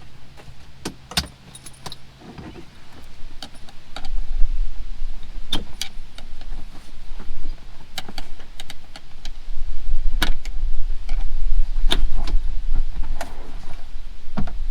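Scattered clicks, knocks and metallic rattles as interior trim and back-seat parts are pried loose and pulled out of a car. A low rumble joins about four seconds in and runs through most of the rest.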